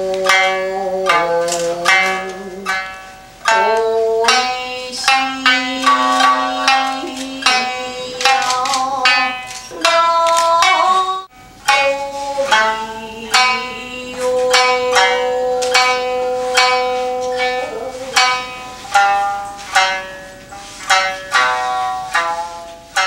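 Traditional Japanese dance music: a shamisen plucked in short phrases of sharp, quickly fading notes, with long held notes sustained over it.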